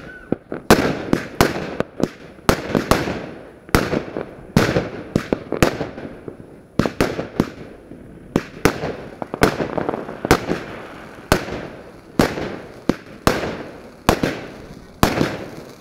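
Fireworks going off in a rapid, irregular barrage of sharp bangs, about two or three a second, each trailing off in a short fading echo.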